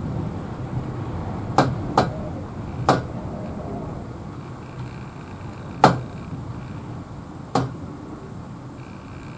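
Strong wind blowing, a steady low rumble, broken by five sharp knocks at irregular intervals, the loudest about six seconds in.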